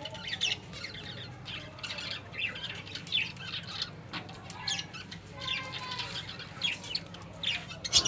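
Small cage birds chirping, short high calls repeating and overlapping throughout.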